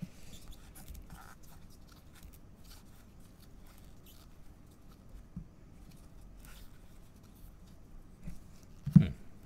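2021-22 Panini Donruss soccer cards being flipped through one by one in gloved hands: faint scattered clicks and light sliding of card edges. A single louder thump near the end.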